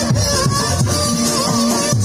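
Live jaranan dance music playing: a repeating melodic phrase over drums and jingling percussion, the pattern coming round about every two seconds.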